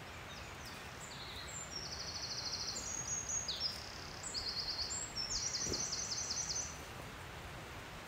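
A small songbird singing a string of high, rapid trilled phrases over a steady background hiss, stopping shortly before the end.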